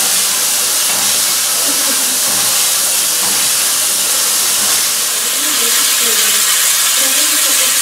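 Er-class steam locomotive Er787-46 standing and venting steam with a loud, steady hiss.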